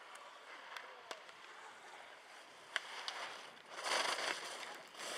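Race skis carving across packed snow in giant slalom turns: a scraping hiss that swells loudly about four seconds in as the racer passes close by, and again near the end. A few sharp clicks come earlier.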